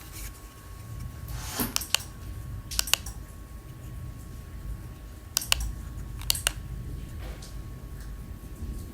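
Clicks of a light switch being pressed, in quick double clicks about four times, over a low steady hum.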